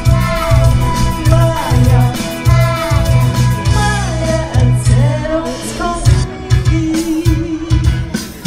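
A 1970s-style Schlager song performed live: singing into a handheld microphone over backing music with a steady, pulsing bass beat.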